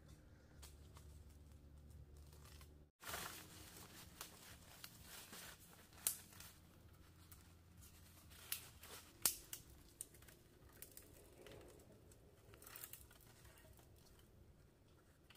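Faint rustling and crackling of dry bamboo leaf litter, with a few sharp clicks and knocks of cut bamboo canes being handled and gathered.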